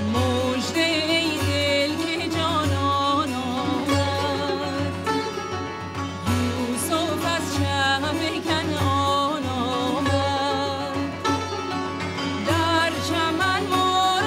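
Persian music: a heavily ornamented melody line with quick wavering vibrato over a steady low beat.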